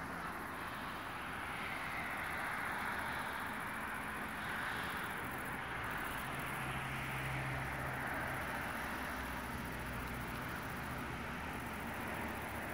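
Distant vehicle noise: a steady low rumble and hiss, with a low engine drone a little stronger for a couple of seconds about halfway.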